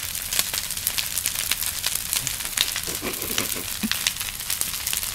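A large fire crackling: a dense, irregular run of sharp pops over a steady hiss as grass, leaves and wood burn.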